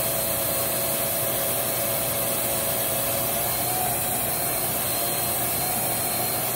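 Riccar R25 upright vacuum running steadily, its brush roll on the low hard-floor speed and turning in place on carpet, which may make the brush roll motor work a little harder. A constant motor whine over a steady rush of air, wavering slightly about four seconds in.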